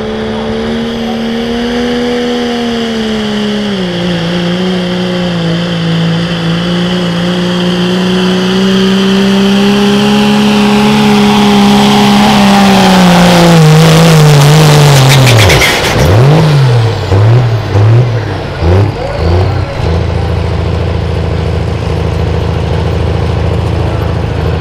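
Diesel 4WD pickup truck engine at full throttle pulling a sled. It drops in pitch once about four seconds in, then holds steady. Later it pulls down lower and lower in pitch as the load builds, at its loudest with crackling. It then surges up and down several times as the truck comes to a stop and settles to a steady idle for the last few seconds.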